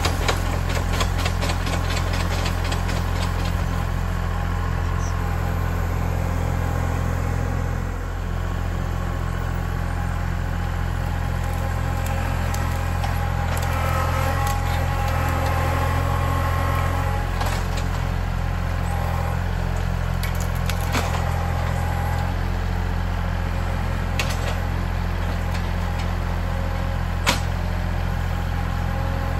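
Kubota L3901 tractor's diesel engine running steadily, with a few sharp knocks in the second half.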